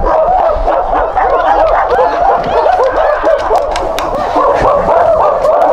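A loud chorus of many overlapping monkey-like hooting calls, each rising and falling in pitch, going on without a break.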